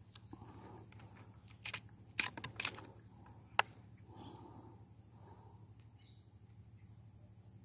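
A steady high insect drone with a low hum beneath it, broken by a handful of sharp clicks in the middle.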